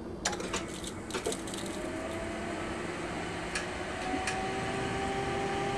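A few clicks in the first second or so, then a Magne Charger inductive EV charger starting up on a RAV4 EV: a steady whir that slowly grows louder, with a faint whine that gradually rises in pitch as the charge begins.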